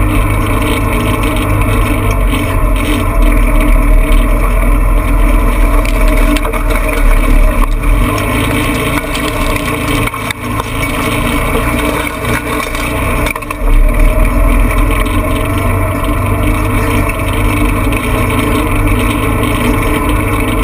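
Off-road vehicle's engine running steadily as it drives a rough dirt track. It eases off for several seconds around the middle, then picks up again.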